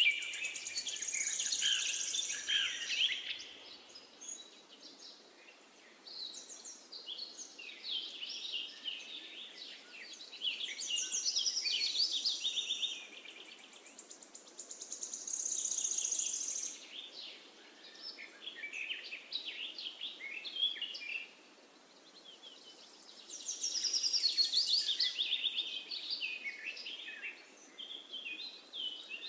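Songbirds singing and chirping in bursts of quick chirps and short trills that come and go every few seconds, over a faint steady hiss.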